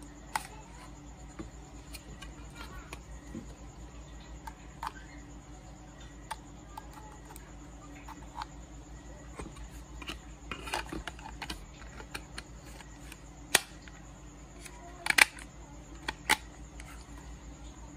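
Light clicks and taps of a plastic submersible aquarium pump's housing being handled and turned over in the hands, with a few sharper clicks in the last third, over a faint steady hum.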